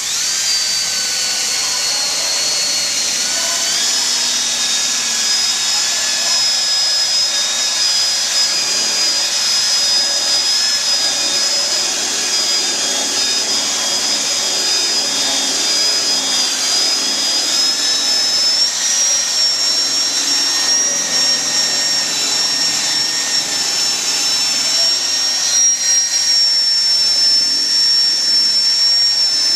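Cordless drill running at high speed with a sanding pad scuffing a plastic headlight lens: a steady motor whine over the hiss of the pad. The whine steps up in pitch a few seconds in and again a little past the middle, as the trigger is squeezed harder.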